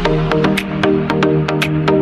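Background electronic music with a steady ticking beat.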